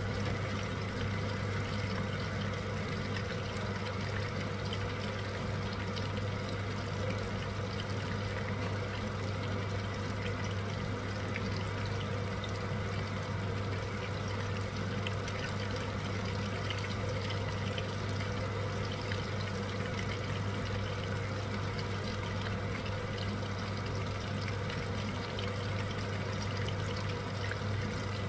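Spring rolls deep-frying in hot oil: a steady sizzle with continual small crackles from the bubbling oil, over a low steady hum.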